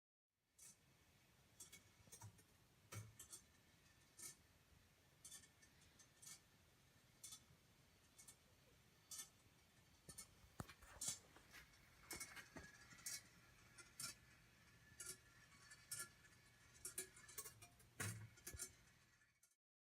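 Congreve rolling-ball clock running after cleaning and lubrication: faint, irregular clicks and clunks roughly once a second from its brass ball and mechanism, with a few louder knocks.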